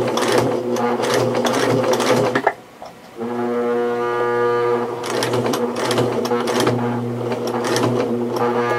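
Electric sewing machine running in bursts as it stitches through thick harness material. It hums steadily with a rapid needle clatter, stops briefly about two and a half seconds in, then runs again.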